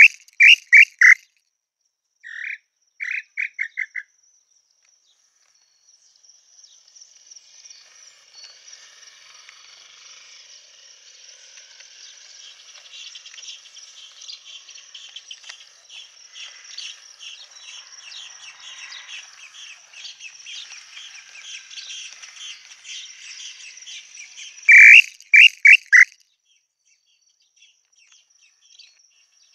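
Tataupa tinamou calling: short runs of three to five loud whistled notes, one at the start, a softer run a few seconds in, and another near the end. In between, a faint, dense chorus of insects and small birds chirps over a steady high-pitched insect hum.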